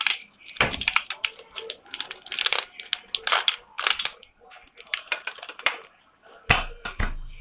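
Small plastic googly eyes clicking and rattling as they are handled and tipped into the slime, with a few dull thumps about half a second in and near the end.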